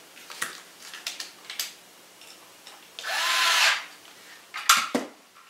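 Small electric screwdriver spinning up for under a second about three seconds in, with a rising whine, driving a small flathead screw into the polymer stock. Light clicks of handled parts come before it, and a sharp knock follows near the end.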